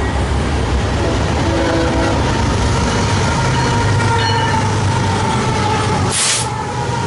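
BNSF diesel freight locomotives passing close by: a loud, steady engine drone with wheels running on the rails, and a brief hiss about six seconds in.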